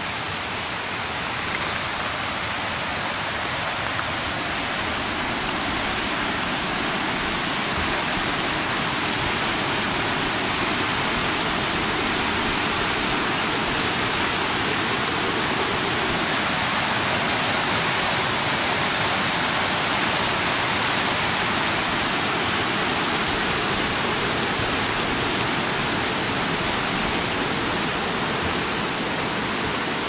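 Mountain stream rushing steadily below, an even hiss of running water that grows a little louder in the middle.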